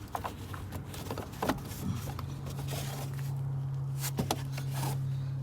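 A few scattered clicks and knocks from a car interior compartment being handled and pried at. About two seconds in, a steady low hum sets in.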